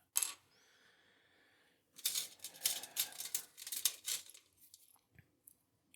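Metal tool scraping and prying at a crimp holding a padlock's lock core. After a single click near the start comes a dense run of scrapes and clicks lasting about two seconds, then a few light ticks.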